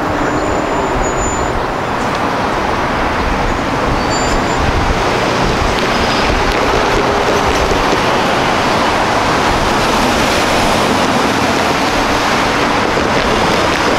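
Road traffic driving across a rail crossing: a steady wash of car engine and tyre noise, getting a little louder about four seconds in.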